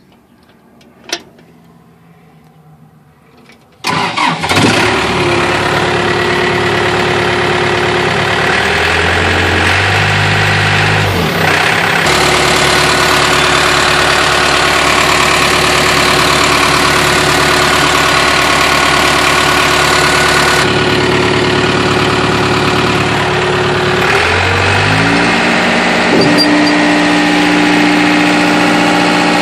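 New Holland LT190B compact track loader's diesel engine cranked and started, catching about four seconds in after a click. It then runs, with its speed rising and falling a few times as the throttle is worked.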